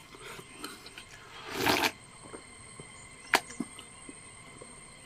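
A person eating instant noodles and rice by hand: a short noisy slurp about one and a half seconds in, then a single sharp click a couple of seconds later, among faint small mouth and hand noises.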